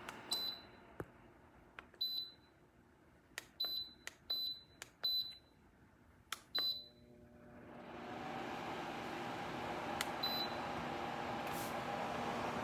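Lasko FH515 tower fan/heater being worked from its controls: a click and a short high beep with each button press, about seven in the first seven seconds. Its running noise dies away after the first beep. Then the fan motor starts and its hum rises to a steady run, with one more click and beep a few seconds later.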